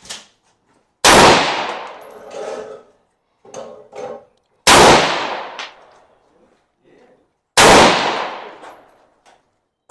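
Three single rifle shots, three to four seconds apart, each a loud crack followed by a fading echo.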